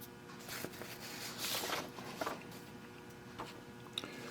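Quiet workshop room tone with a steady faint hum, broken by a few brief rustles and light clicks of something being handled.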